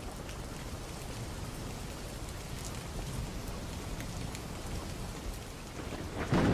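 Steady rain falling, with faint scattered drop ticks, and a louder, deeper burst of sound near the end.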